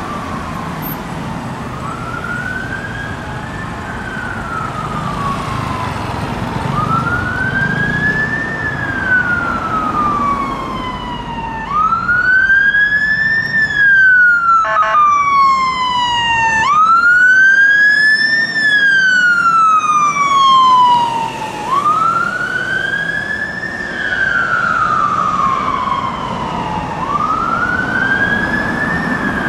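London Fire Brigade fire engine's siren on wail, sweeping slowly up and down about once every five seconds. It grows louder about twelve seconds in as the appliance passes close, then eases off slightly as it drives away.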